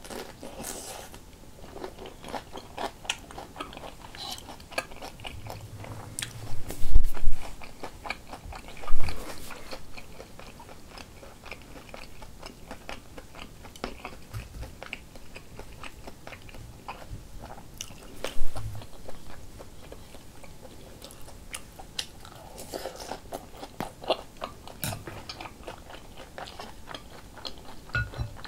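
Close-miked eating: biting and chewing pan-fried shrimp dumplings and rice-cake soup, many small crisp crunches and mouth clicks. Three loud low thumps stand out, two close together in the first third and one a little past halfway.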